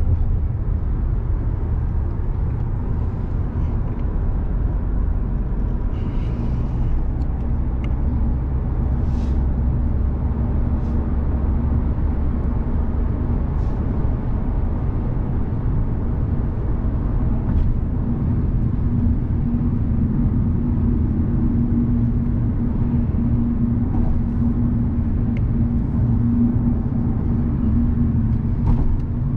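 Steady road, tyre and engine noise heard inside an Audi sedan's cabin cruising on an expressway at about 120 km/h, with a low droning hum that grows stronger in the second half.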